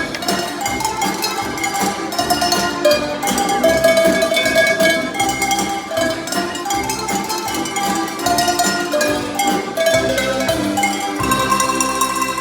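A set of tuned Alpine cowbells played as a melody, one ringing note after another, the notes overlapping as they ring on.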